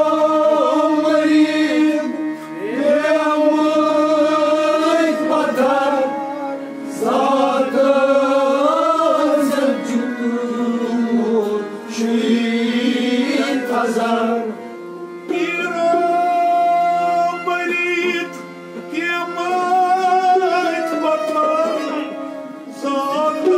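Kashmiri Sufi devotional song: a man singing in long phrases of a few seconds each, with short breaks between them, over instrumental accompaniment.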